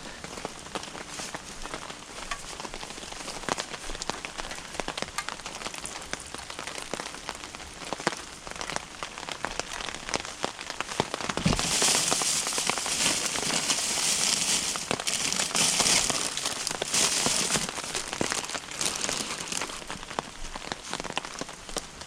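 Firewood burning, crackling and popping steadily. About halfway through there is a knock, and the crackle grows louder and hissier for several seconds before settling again.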